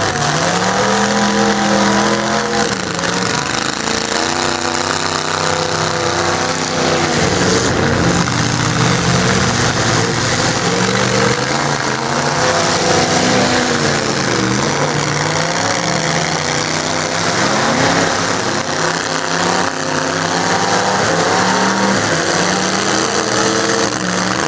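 Demolition derby pickup trucks' engines revving hard, their pitch climbing and dropping over and over as they push and ram one another. Loud throughout.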